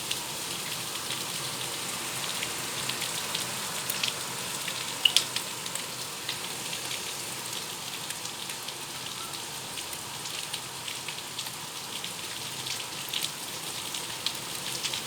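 Steady rain falling, an even hiss with many individual drops ticking sharply close by, a couple of the loudest drops about five seconds in.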